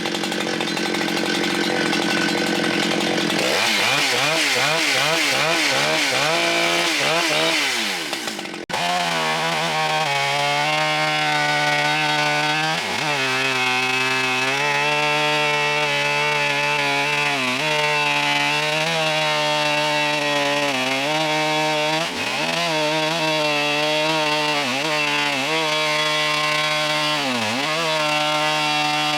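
Husqvarna chainsaw on an Alaskan chainsaw mill, running hard while ripping lengthwise through a big log. Its pitch wavers up and down at first, cuts off for an instant about nine seconds in, then holds steady with brief sags every few seconds as it bogs in the cut. The millers later judge the chain not sharp enough for this cut.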